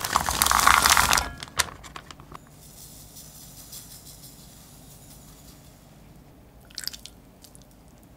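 Frozen blueberries tipped from a plastic bag into an empty stainless steel saucepan, clattering for about a second, with a few scattered ticks after. Then a soft hiss of granulated sugar poured over the berries.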